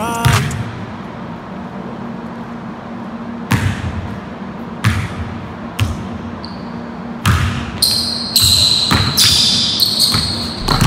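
A basketball bouncing on a hardwood gym floor. The bounces start a few seconds in, about a second apart, then come quicker in the last few seconds, mixed with short high squeaks of sneakers on the court.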